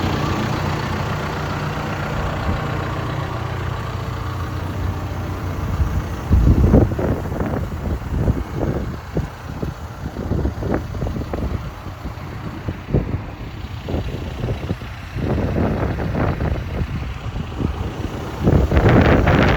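John Deere 310SK backhoe loader's diesel engine idling steadily. From about six seconds in, irregular thumps and rumbles come over it, loudest about six and nineteen seconds in.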